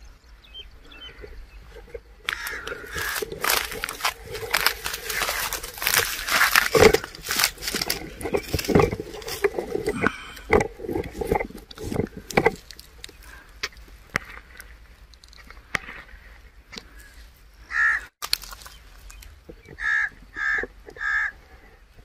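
Dry rice stubble and straw crunching and rustling close to the microphone for about ten seconds, as someone moves through the harvested field. Near the end a crow caws four or five times, in short harsh calls.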